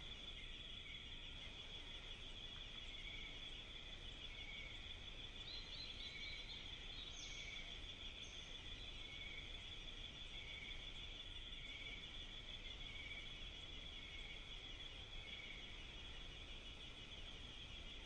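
A steady high, pulsing trill of insects chirping in the undergrowth, with a lower chirp repeating roughly once a second.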